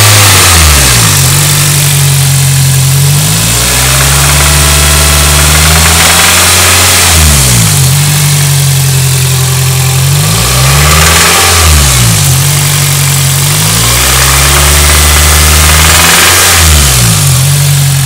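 2001 Toyota Celica GT's 1.8-litre four-cylinder engine revved up and let back down several times. The revs are meant to bring out an unidentified noise from the top end of the engine, which the owner hears from about 2,000–2,500 rpm.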